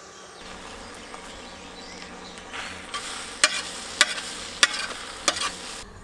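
Eggs sizzling in a propane-fired Skottle skillet, with about five sharp clicks and scrapes of a metal utensil against the pan in the second half; the sound cuts off abruptly near the end.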